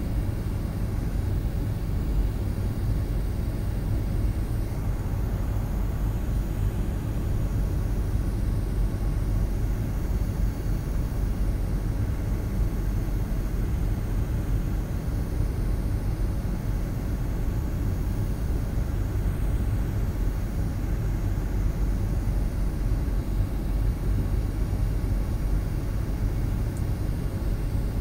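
Steady airliner cabin noise on the approach to landing: a continuous low rumble of engines and airflow, heard from inside the passenger cabin.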